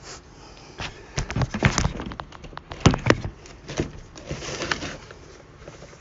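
Small cardboard box being handled and picked at while being opened: a run of sharp clicks, taps and knocks, the loudest a pair about three seconds in.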